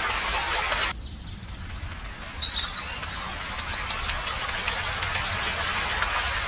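Small birds chirping: a quick run of short, high chirps a couple of seconds in. A steady hiss cuts off abruptly about a second in and fades back up in the second half.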